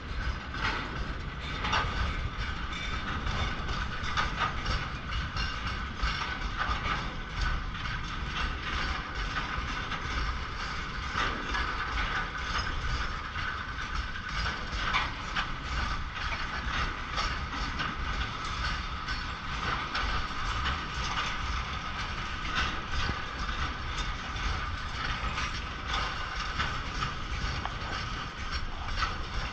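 Freight train of tank cars rolling past: steel wheels clattering and clicking over the rail joints, with a steady high-pitched squealing tone from the wheels on the rails.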